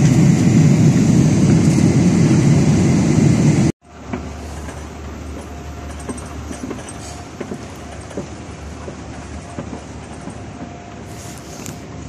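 Airliner cabin noise in flight: a loud, steady low rumble that cuts off suddenly a little under four seconds in. It gives way to much quieter airport-terminal ambience on a moving walkway, a steady hum with a faint tone and scattered light clicks.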